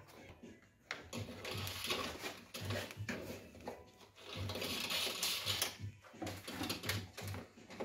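Handling noise as a thin camera cable is pulled along the tailgate and through the rubber wiring boot at the hinge of an Audi A3 8P: rustling and scraping in irregular bursts, loudest twice, about a second and a half in and again about four and a half seconds in.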